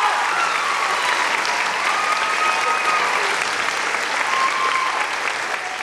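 Audience applauding, with a few voices calling out over the clapping, slowly dying down towards the end.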